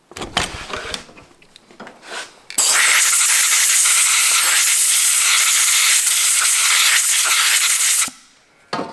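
A few small metal clicks of handling the distributor, then a loud, steady hiss of compressed air blown into the Ford Model A distributor for about five seconds, blowing dust out of it, cutting off abruptly.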